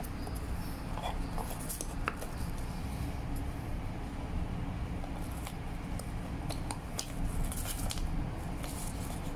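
Small scattered clicks and scrapes of plastic being handled as a black plastic spindle is fitted into a roll of label paper, a little busier near the end, over a steady low background hum.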